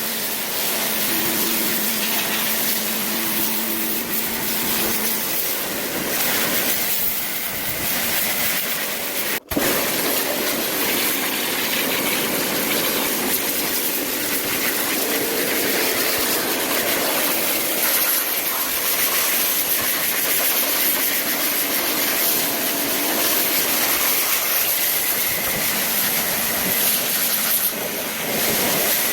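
High-pressure water spray hissing steadily as washer parts are jet-washed, with a brief cut about nine and a half seconds in.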